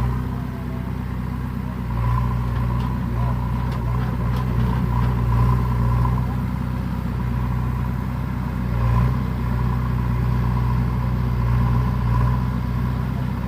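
JCB 3DX backhoe loader's diesel engine running, its note rising and falling as the machine works, with a steady high whine over the engine hum. The engine swells about two seconds in and again around nine seconds.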